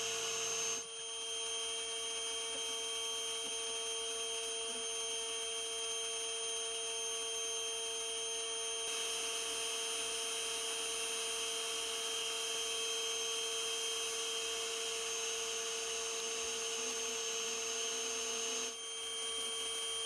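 Bee vacuum's motor running with a steady hum, dipping briefly about a second in and again near the end.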